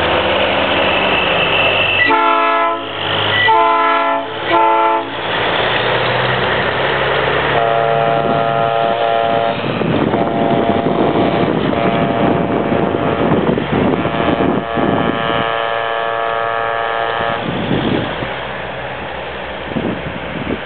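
Semi-truck air horns blowing: three short blasts about two seconds in, then four long blasts from about seven seconds in. Under them is the steady noise of diesel truck engines pulling away.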